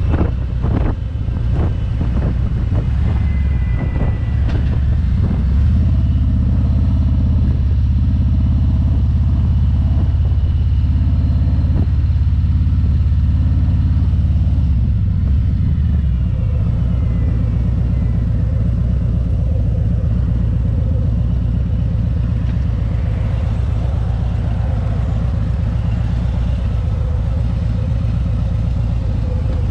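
Touring motorcycle's engine running steadily under way, with a deep hum. About halfway through, the engine note drops as the bike eases off and slows.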